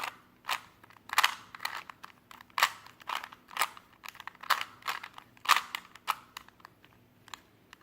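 A plastic Rubik's Cube being twisted by hand: a run of irregular clicks and clacks as its layers are turned, about one or two a second.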